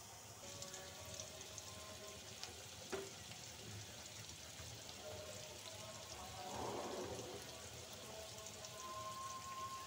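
Chopped onions, garlic and green chilies frying in oil in a pan: a soft, steady sizzle with fine crackles. There is one sharp knock about three seconds in.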